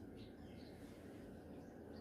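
Faint, scattered bird chirps, a few short calls in the first second, over a low background rumble.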